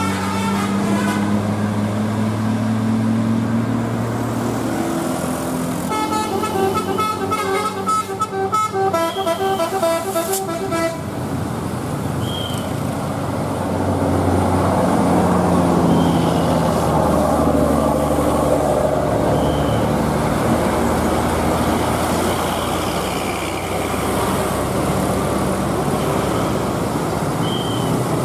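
Buses passing with their engines running, rising and falling in pitch. About six seconds in, a basuri telolet multi-tone bus horn plays a quick melody of stepped notes for about five seconds.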